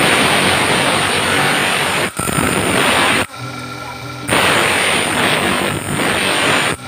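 Bench grinder wheel grinding a monel ring blank, smoothing the rough-cut piece: a loud, harsh hiss in two long passes. In the gap about three seconds in, with the metal off the wheel, the grinder motor's steady hum comes through.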